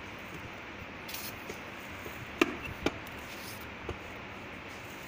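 A hand pressing and tapping on the plastic front panel of a wall-mounted sanitary napkin incinerator makes a few sharp clicks. The loudest comes about two and a half seconds in, another half a second later and a weaker one near four seconds.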